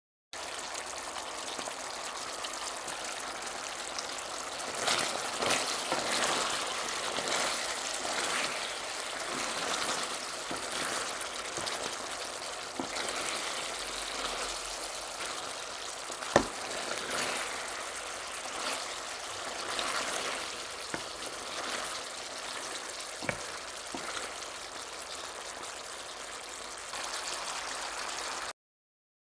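Phanaeng curry sizzling in a pan, a steady hiss, with a sharp tap about halfway through and another one later.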